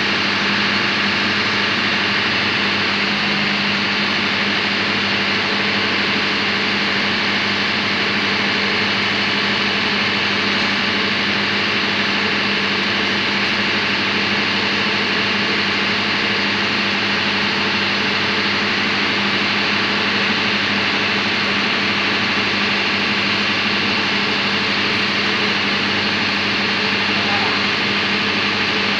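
Loud, steady drone of engine-room machinery with a constant hum, unchanging throughout.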